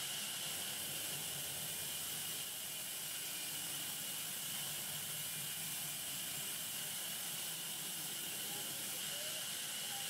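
Sawmill band saw running, heard as a steady, even hiss with a brighter high band and no distinct cuts or knocks.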